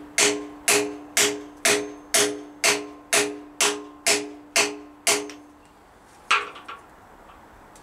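Hammer blows on a socket driving a core plug into a Rover V8 aluminium engine block: a steady run of about a dozen metallic strikes, about two a second, each ringing briefly. After a short pause comes one last blow as the plug is set flush.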